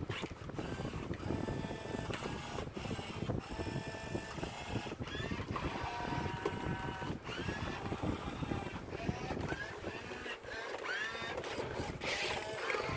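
Robosapien V2 toy robot's gear motors whirring as it moves its arms, over a run of electronic beeps, warbles and short rising and falling chirps from its built-in speaker, with a few sharp clicks.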